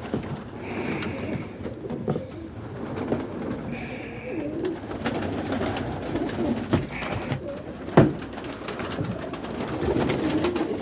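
Roller pigeons cooing in a coop, with a few short high squeaks and scattered clicks, and a sharp knock about eight seconds in.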